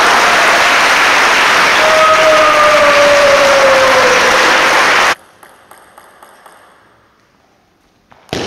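Spectators applauding and cheering after a point in a table tennis match, with a long drawn-out shout falling in pitch among the clapping. It cuts off suddenly about five seconds in, leaving the quiet of the hall.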